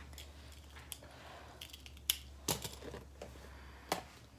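A few light clicks and taps, the kind made by a phone being handled as it is carried, over a low steady hum.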